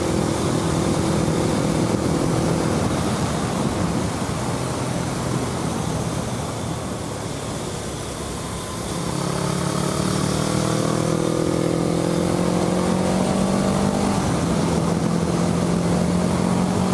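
Suzuki GS500F's carbureted parallel-twin engine running under way, with wind rushing past the helmet microphone. It eases off and goes quieter for a few seconds in the middle, then pulls again with its note rising steadily until it drops abruptly about fourteen seconds in, and runs on steadily.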